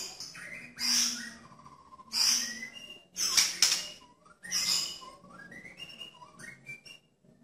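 White-rumped shama singing: loud, rough, harsh bursts about a second apart, with clear whistled notes between them and a rising run of short whistles near the end.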